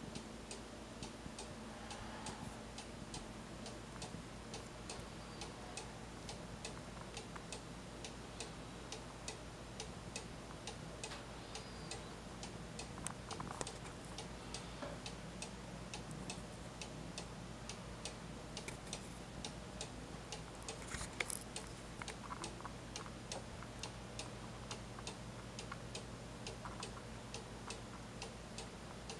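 Weight-driven carved wooden cuckoo clock's pendulum movement ticking steadily and faintly, with one sharper click about two-thirds of the way through.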